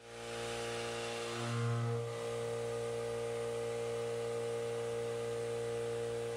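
CNC milling machine's spindle turning a 3/4-inch backdraft finishing cutter at 3500 RPM as it semi-finishes the walls of a pocket in 4140 pre-hard steel: a steady hum with several steady tones. The sound swells briefly about one and a half seconds in, as the cutter takes the extra stock left in a corner.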